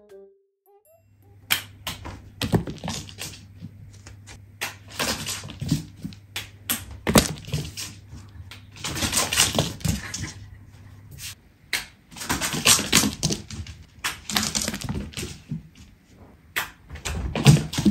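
A cat batting and chasing a small yellow rubber bird toy across a wooden floor: irregular taps, clicks and short scuffling bursts as the toy skids over the boards and the cat's paws scrabble after it.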